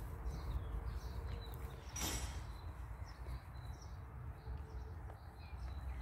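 Faint outdoor ambience: small birds chirping in the background over a low rumble, with one brief noise about two seconds in.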